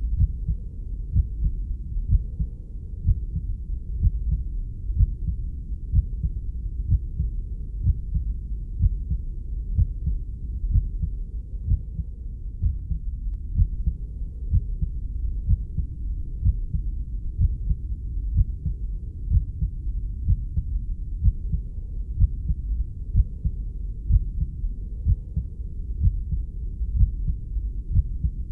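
Heartbeat recording: a steady, even run of low, dull heartbeat thumps over a constant low rumble.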